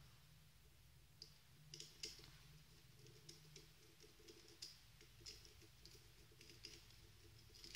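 Faint, scattered small clicks and taps, about a dozen, of hands handling wires and a small electronics assembly.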